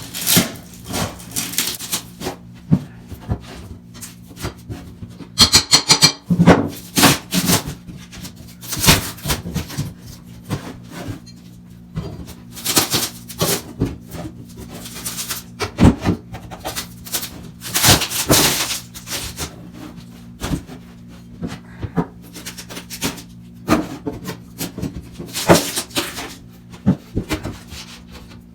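Irregular scraping, rubbing and knocking of hand work on the wooden bathroom floor, with a faint steady hum underneath.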